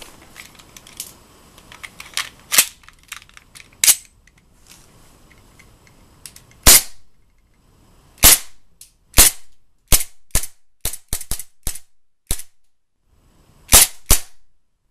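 HG-170 gas blowback airsoft pistol firing semi-automatic, about a dozen sharp cracks with the metal slide cycling on each shot, some fired in quick succession. A few lighter clicks of handling the pistol come before the first shot.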